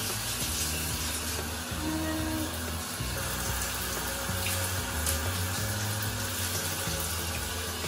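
Handheld shower head spraying a steady stream of water over a small dog's wet coat, rinsing out medicated shampoo, with background music of sustained low notes.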